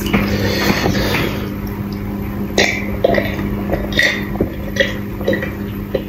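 Close-up mouth sounds of a person eating curry and rice: chewing with several short wet smacks, over a steady low hum.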